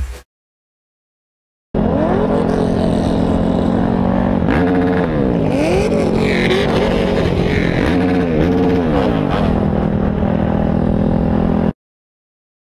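Dirt bike engine running under way, its revs rising and falling several times. It starts about two seconds in and cuts off suddenly near the end.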